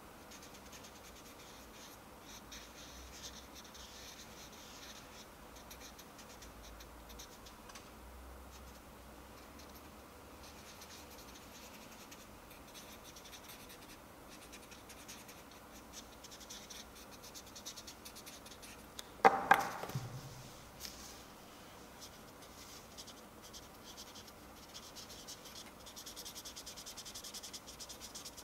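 Felt-tip permanent marker scratching in short strokes over the surface of a small ball as marks are drawn on it. About two-thirds of the way through there is a single louder knock.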